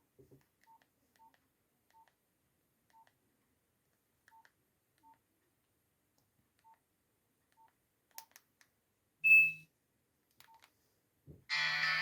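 Nokia 1280 keypad tones: short faint beeps at uneven intervals as keys are pressed, with one louder beep about nine seconds in. Just before the end a ringtone melody starts.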